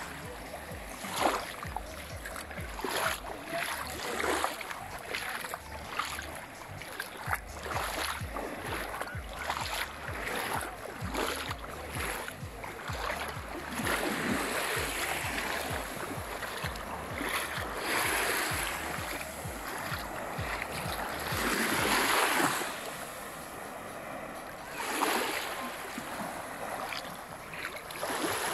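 Small waves lapping and washing on a sandy shore, swelling louder every few seconds, with wind rumbling on the microphone and many short ticks and splashes.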